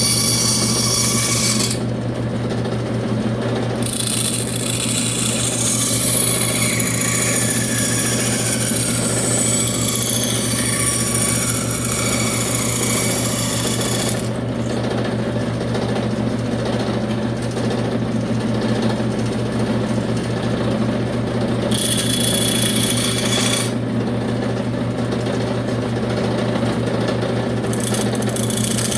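Electric power tool motor running steadily with a low hum, working wood; a higher hiss from the cutting comes and goes, with a few falling whines as the load changes.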